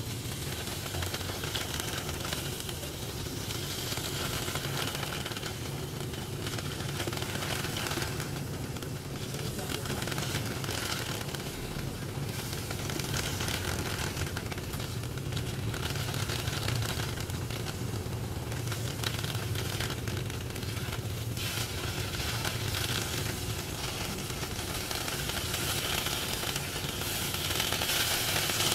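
Blocks of tofu sizzling as they pan-fry in oil in a nonstick frying pan, the sizzle growing louder near the end. A steady low hum runs underneath.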